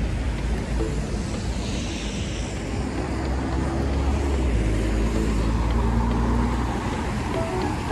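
Road traffic on a rain-wet city street. About two seconds in, a passing vehicle's tyre hiss falls in pitch; then a deep engine rumble grows louder through the middle and eases near the end.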